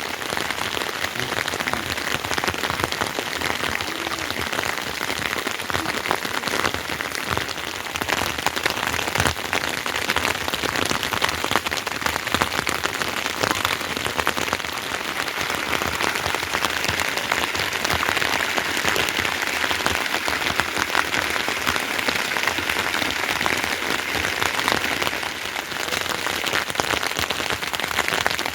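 Heavy rain falling steadily, a dense hiss of countless drops striking surfaces.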